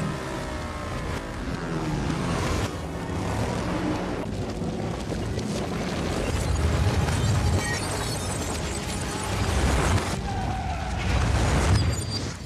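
Action-film sound played backwards: explosion rumble and car engine noise swell up and stop abruptly several times, mixed with music.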